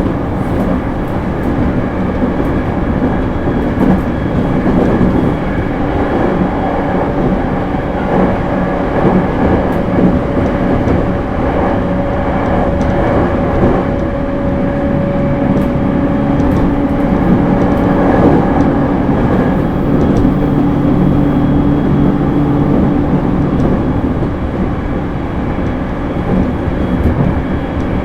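JR East E231 series suburban electric train running along the line, with a continuous rumble of wheels on rail and the hum of its Hitachi IGBT-inverter traction motors. Steady motor tones come up about ten seconds in and fade out after about twenty-three seconds.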